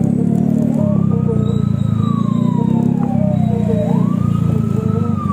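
Wailing siren, rising quickly and falling slowly in pitch about twice, over a steady low engine drone.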